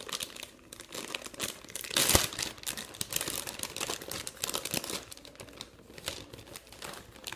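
Thin plastic wrapper of a Huggies baby wipes pack crinkling and crackling as fingers work at its top to open it, with a louder crackle about two seconds in.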